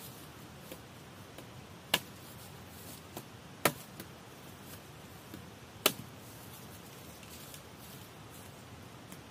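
Machete chopping a dead wooden pole on the ground: three sharp chops about two seconds apart, with a few lighter taps between them.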